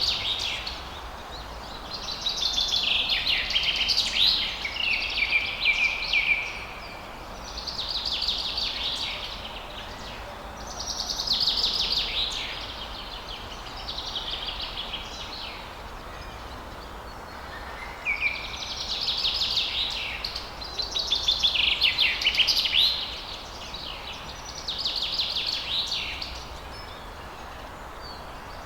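A songbird singing rapid, chattering phrases a second or two long, repeated every few seconds, over the steady rush of falling water.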